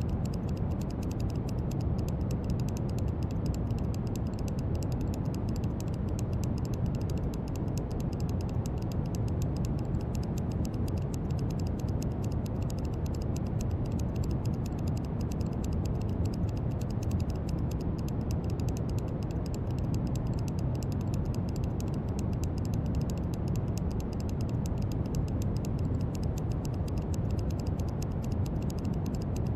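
Brown noise: a steady, deep, even hiss, strongest in the low end and softer in the highs, with no change in level.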